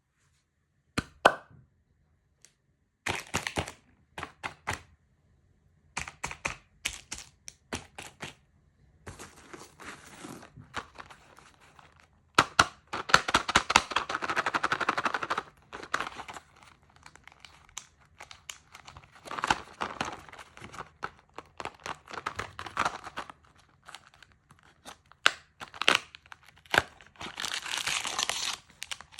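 Candy and chocolate packaging being handled and opened close up: plastic wrappers crinkling and tearing, with many sharp clicks and cracks. A longer stretch of steady crinkling comes near the middle and again near the end.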